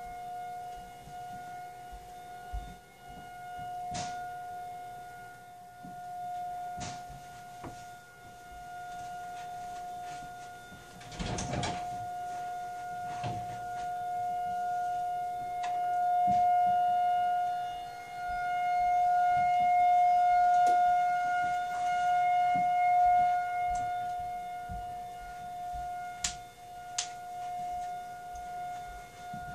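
Federal Signal 2001-SRN outdoor warning siren sounding its steady single-tone wail for a tornado drill. The tone holds one pitch while its loudness swells and fades, loudest past the middle.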